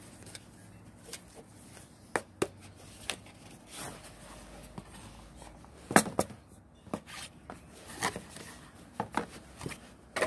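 Cardboard knife boxes being picked up, shuffled and set down on a glass tabletop: scattered light taps and rubs, with a sharper knock about six seconds in.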